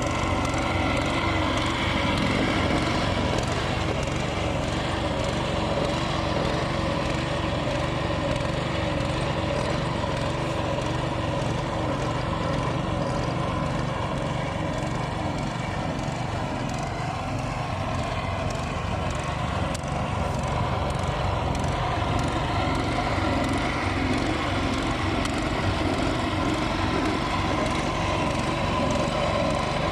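Engine of construction machinery running steadily, its pitch wavering slightly.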